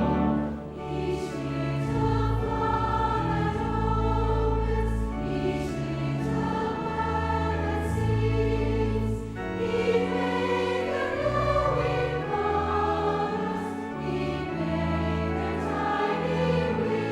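Choral music: a choir singing sustained chords over a low bass line, in a hymn-like style.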